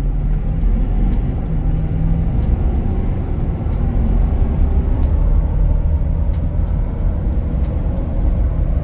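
Stock Ford 6.7L Power Stroke V8 turbodiesel at full throttle, heard from inside the cab as the truck accelerates hard from 30 to 80 mph. A deep steady rumble, with the engine note stepping as the automatic transmission shifts up partway through.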